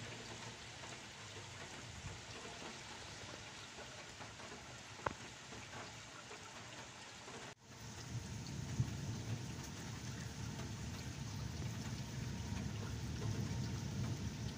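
Steady rain hissing in a thunderstorm, with a single small tick about five seconds in. About halfway the sound drops out for an instant and comes back heavier, with more low rumble underneath.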